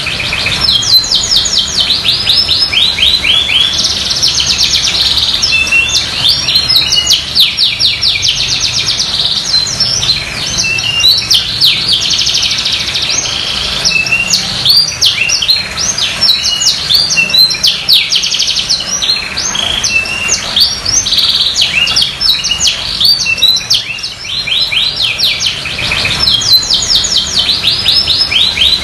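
Domestic canary in full, continuous song: long runs of fast repeated trills and chirps, one phrase flowing into the next.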